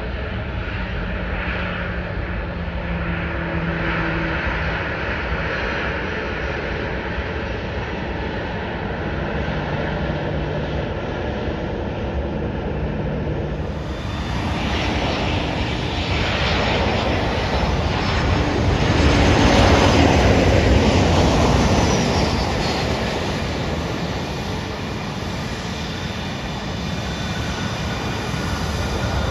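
Jet airliner engines at an airport: a steady distant jet rumble, then a twin-jet airliner landing, its engine noise swelling to a loud peak about two-thirds of the way through and fading again, with a faint falling whine.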